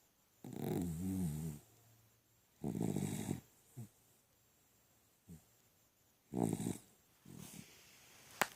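A sleeping dog snoring: three loud snores about two to three seconds apart, the first over a second long with a wavering pitch, and short fainter snores between them. A sharp click near the end.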